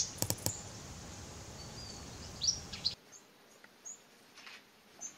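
Short, high bird chirps over a steady background hiss, after two sharp taps near the start. About three seconds in the hiss drops away suddenly, and only a few faint chirps remain.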